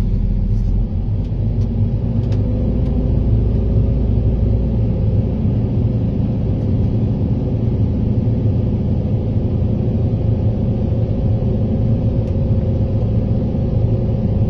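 Excavator engine running steadily, its hum holding an even pitch, heard from the operator's seat.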